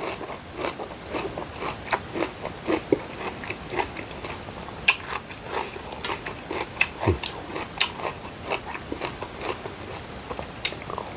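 A person biting and chewing crunchy food close to the microphone, with irregular sharp crunches and wet clicks of the mouth.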